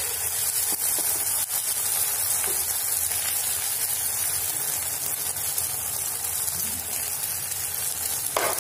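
Egg batter with chopped onion and tomato sizzling in hot oil on a flat iron tawa, a steady frying hiss, with a few light clicks of the spoon that spreads it across the pan.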